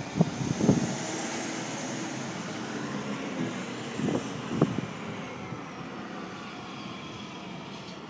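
A fire truck's engine running as the truck moves off, a steady low hum over street noise. A few sharp thumps stand out above it: two in the first second and two more about four seconds in.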